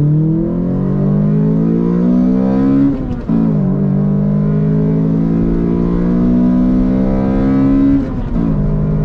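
A 2005 Toyota Corolla XRS's 2ZZ-GE four-cylinder engine heard from inside the cabin, pulling hard under acceleration with its pitch climbing. The pitch drops sharply twice, about three seconds in and again about eight seconds in, at gear changes, and then climbs again.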